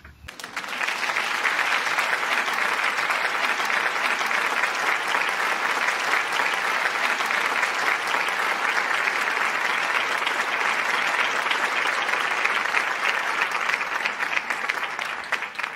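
Audience applauding steadily, the clapping swelling in over the first second and cutting off abruptly at the end.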